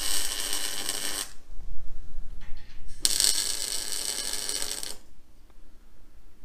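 MIG welder tack-welding a steel box-section trailer frame: two bursts of crackling arc, the first about a second and a half long, the second starting about three seconds in and lasting about two seconds.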